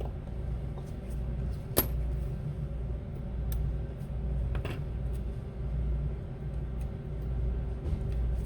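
Small metal clicks of repair tools and tiny screws on an iPhone's internals: one sharp tick about two seconds in, another near the middle and a few fainter ticks, over a steady low hum.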